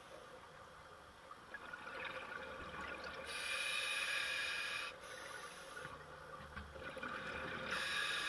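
A scuba diver breathing through a regulator, heard underwater: two long hissing breaths about four and a half seconds apart, with softer bubbling between them. The pace is slow and unhurried, about 11 breaths a minute, the breathing of a relaxed diver.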